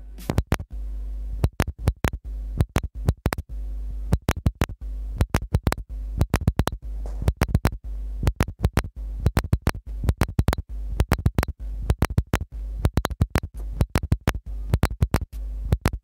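Dense, irregular sharp clicks and crackles in quick clusters, over a steady low hum and faint music.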